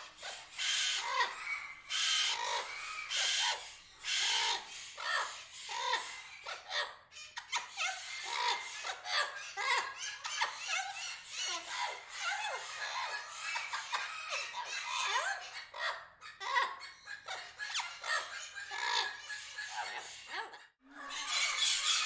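Busy mix of bird calls: many short chirps and chattering calls overlapping, with a few harsh, noisy squawk-like bursts in the first few seconds. The sound drops out briefly near the end.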